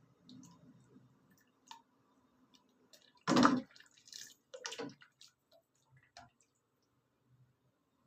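Kitchen handling sounds while preparing food: scattered light clicks, with a loud clatter or splash about three and a half seconds in and a smaller one around five seconds.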